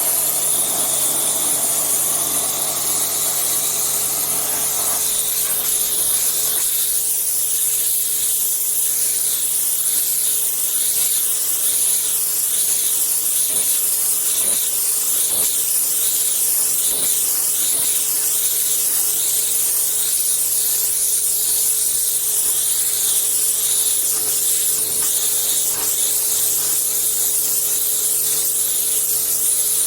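Pressure washer spraying: a steady, loud hiss of high-pressure water with a constant hum from the machine underneath.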